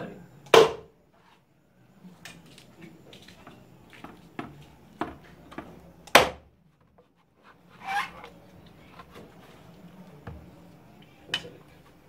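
Machete chopping into the husk of a green coconut: a series of sharp, irregularly spaced chops, the loudest about half a second in and about six seconds in.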